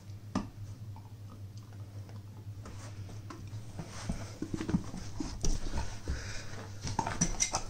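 A dog chewing and gnawing a plush squeaky Santa toy, tearing at its foot: scattered clicks and crunches of teeth on the toy with rustling, getting busier after about three seconds.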